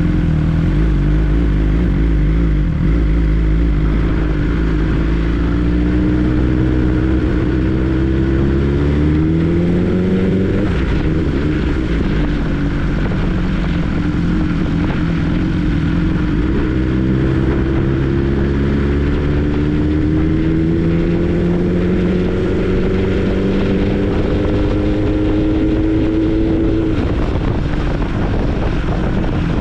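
BMW S 1000 R's inline four-cylinder engine running under way, its pitch climbing slowly as the bike accelerates. The pitch falls sharply about ten seconds in, climbs slowly again and falls once more near the end.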